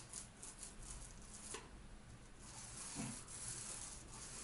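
Faint wet squishing and scraping of a paintbrush being worked in a container of white paint, with a few soft taps.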